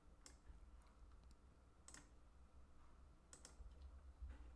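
Near silence with a few faint, sharp clicks of a computer mouse.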